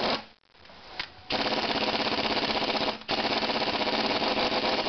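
Chicago Pneumatic air impact wrench hammering rapidly as it runs the coil-spring compressor's screws back to release the spring on a MacPherson strut. It stops just after the start, resumes about a second later and runs in two long bursts with a brief break between them.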